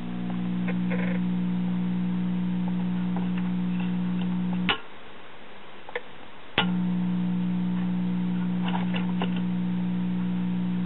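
Circa 1941 Aircastle five-tube AC/DC radio chassis powered up, its speaker giving only a low steady hum with no static or station at any volume setting: the set has a fault. The hum stops for about two seconds between two sharp clicks, one about five seconds in and one near the middle, then comes back.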